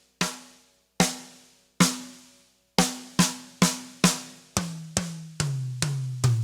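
Single accented stick strokes on a drum kit, about a dozen in all: slow and evenly spaced at first, then about two or three a second. From about halfway each stroke rings lower than the one before, as the strokes move down the toms.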